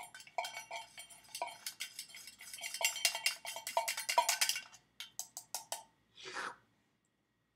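A pipe tool stirred fast inside a metal mug, clinking and rattling against its sides for about six seconds, densest and loudest in the middle, then stopping.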